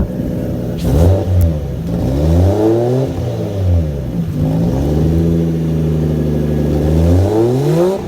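Toyota 1JZ-GTE straight-six being revved several times, its exhaust running through a Powerstroke diesel truck muffler jammed onto the pipe; the revs climb and fall in quick blips, then hold steady for a few seconds before rising once more near the end.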